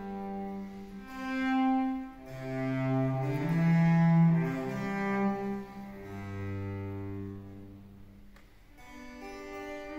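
Cello and harpsichord playing a Baroque sonata for cello and continuo. The cello holds long bowed notes that swell and fade, and the music goes softer for a couple of seconds past the middle.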